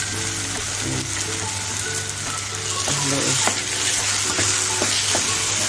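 Green peas with tomato and onion sizzling in a metal pan, stirred with a wooden spoon that scrapes and taps against the pan in scattered clicks.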